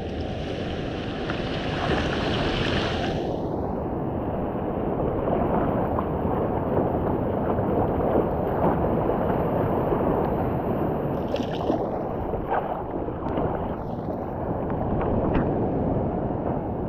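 Sea water lapping and sloshing right at a helmet-mounted GoPro at surface level, with small surf breaking and wind buffeting the microphone. The water goes brighter and hissier for a few seconds at the start and again briefly about eleven seconds in.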